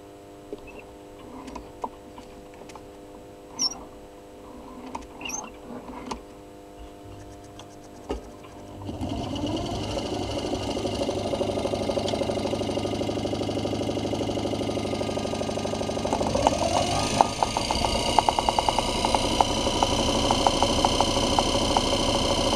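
Greenmaster GMD82-05-1B 1.5 hp treadmill DC motor running on the bench from a rectifier and speed control: a faint steady hum at first, then about nine seconds in it speeds up into a louder, steady whir, and from about sixteen seconds a fast ticking joins it. Its current draw climbs as it runs, which the owner judges no good and a reason to open the motor.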